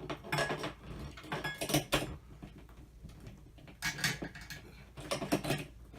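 Irregular clicks, taps and rustling from hands handling ceiling-fan wiring and hardware at the ceiling box, in scattered clusters with short pauses between.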